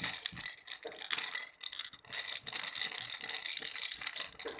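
Small hard candies rattling and clattering inside a plastic candy toy, in dense irregular clicks.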